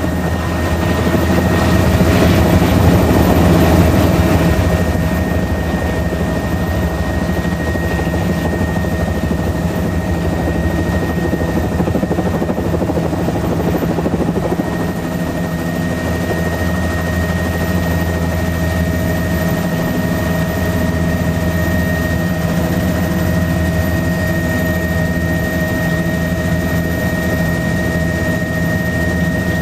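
Helicopter engine and rotor heard from inside the cockpit, running steadily with a constant whine over a low throb as it moves low along the runway and climbs away. The sound swells louder for a few seconds near the start.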